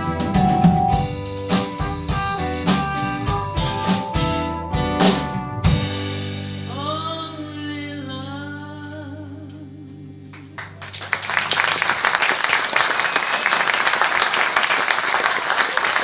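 Live band of keyboard, electric guitar, bass, drum kit and trumpet playing the closing bars of a song, ending on a drum hit about six seconds in. A singer holds the final note with vibrato over a sustained chord that fades away, and about eleven seconds in the audience breaks into applause.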